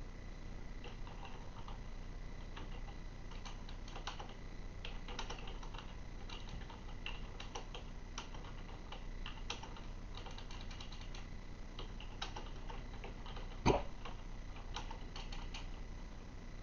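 A person's single sharp hiccup near the end, over scattered light irregular clicks and taps.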